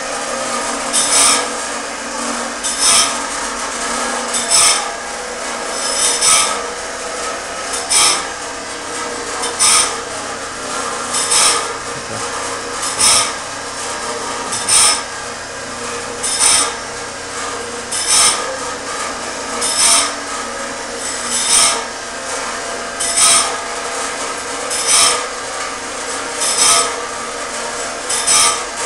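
Automatic band saw blade sharpener and setter running: its electric motors run steadily while the grinding wheel takes a short, sharp grind at the blade about every 1.7 seconds, one tooth after another.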